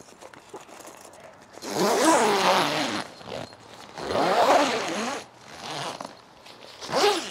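Zip on a Fox Frontier XD bivvy's fabric panel being drawn along: two long pulls of about a second each, then a short one near the end.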